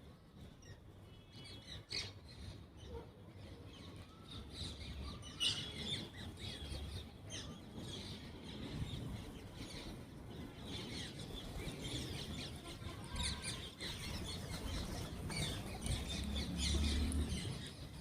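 A flock of wild green parrots calling with many short, overlapping chirps and squawks, growing busier toward the end.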